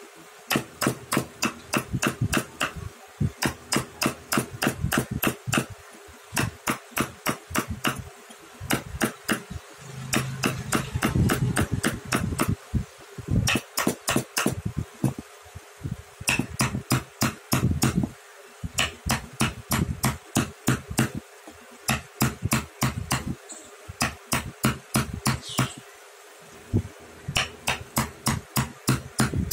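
A carving chisel being struck in quick runs of sharp taps, about four a second with short pauses between runs, as it cuts chips from a block of wood.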